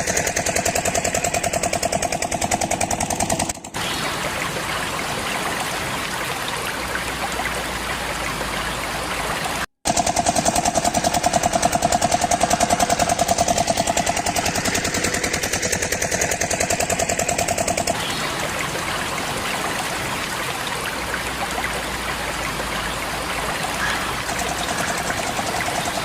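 A small engine running with a fast, rattling putter, broken by abrupt cuts between shots.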